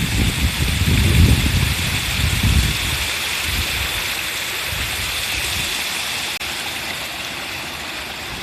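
Mountain stream water rushing steadily, with a low rumble underneath for the first two and a half seconds.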